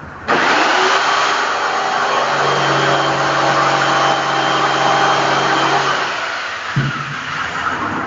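Handheld electric power tool working on the wooden speaker box: its motor starts abruptly, runs for about six seconds as a steady whine over harsh noise, then winds down, followed by a sharp knock near the end.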